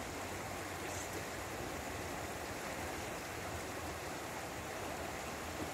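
Steady rushing of a shallow river flowing over rapids.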